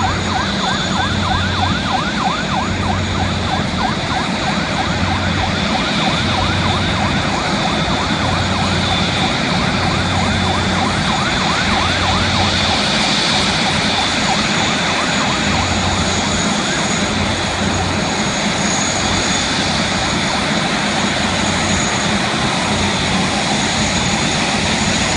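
Airbus A380's four turbofan engines running at taxi power with a steady high whine. Over the first half, fire truck sirens wail in a fast up-and-down warble that fades out about halfway through.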